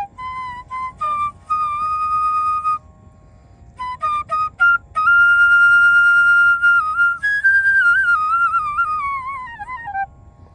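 A side-blown wooden flute played solo in a slow melody: a few short notes, a short pause about three seconds in, then a long held high note and a wavering phrase that slides down in pitch near the end.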